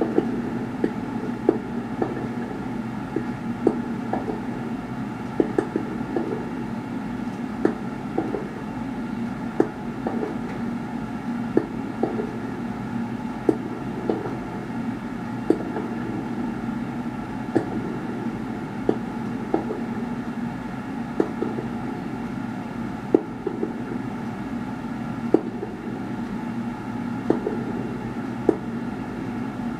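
Firework bursts going off in an irregular series of sharp bangs, roughly one every second or two, over a steady rumble, heard through a television's speaker.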